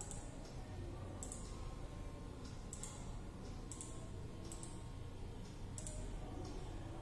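Computer mouse clicking: short, sharp clicks about once a second, over a faint low hum.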